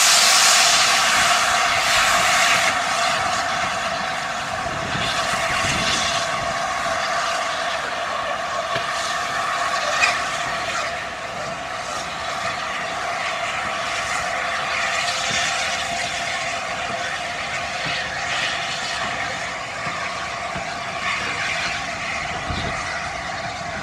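LNER A4 Pacific steam locomotive 60007 Sir Nigel Gresley working past with its train of coaches: a steady mechanical and rail noise that is loudest at first and fades gradually as the train draws away. There is one short click about ten seconds in.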